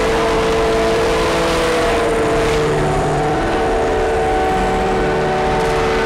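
Electronic drone from a synthesizer: several steady tones held together, slowly bending in pitch, over a constant hiss.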